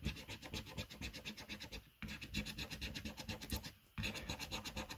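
A coin scratching the latex coating off a lottery scratchcard in rapid back-and-forth strokes, pausing briefly twice.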